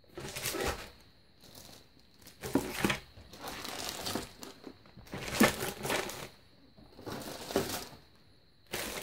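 Plastic bags of model kit parts on their sprues crinkling as they are handled and laid into a cardboard box, in several separate bursts of rustling with short pauses between.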